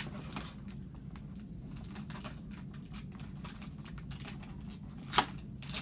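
Plastic packaging crinkling and small clicks as fingers pick at the plastic locks holding a Hatchimals egg in its box, with one sharper click about five seconds in. A steady low hum runs underneath.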